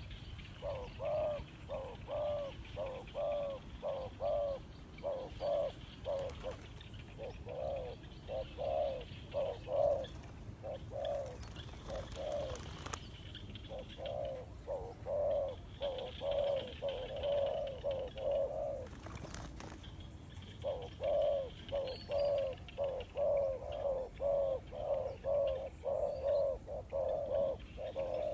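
Spotted dove cooing: a long series of short, soft coo notes, about two a second, in runs with a brief pause about two-thirds of the way through.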